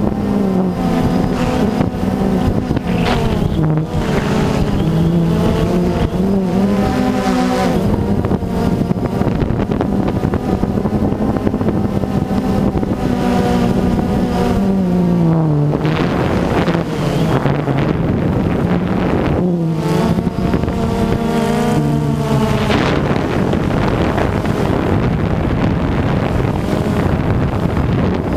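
Quadcopter drone's electric motors and propellers whining steadily, several pitches that glide up and down as the drone changes speed and turns.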